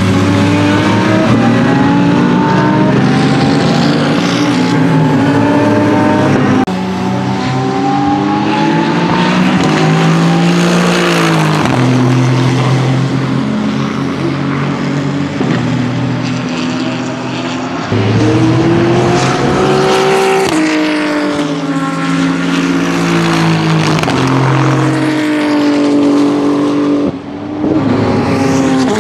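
Aston Martin Vantage GT3's twin-turbo V8 racing engine at speed, revving up through the gears with sudden drops in pitch at the shifts, and falling in pitch as the car passes and pulls away. Several separate passes follow one another with abrupt changes where the clips are cut together.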